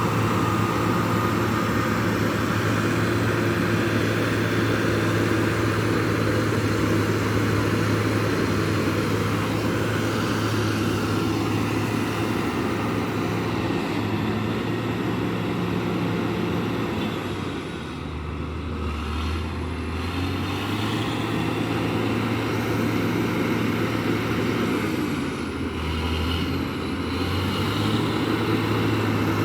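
A large vehicle engine running steadily, its note dropping lower and its level dipping twice, about two-thirds of the way through and again near the end.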